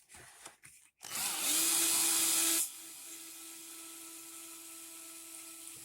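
Small handheld cordless power drill backing out screws from an RC truck's chassis. It spins up about a second in and runs loudly for about a second and a half, then drops to a quieter, steady spin until it stops near the end.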